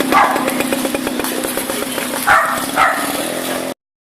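A small engine running with a rapid, even beat, while a dog barks about three times: once at the start and twice in quick succession later. The sound cuts off abruptly near the end.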